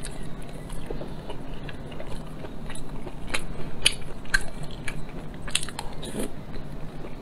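Close-miked chewing: sharp wet mouth clicks and smacks, scattered irregularly, as a soft piece of food is bitten and chewed.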